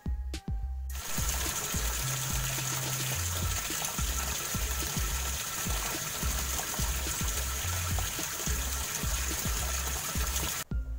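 Top-loading washing machine churning a load of laundry, with the water swishing steadily in the tub; it starts about a second in. Background music with a steady beat plays underneath.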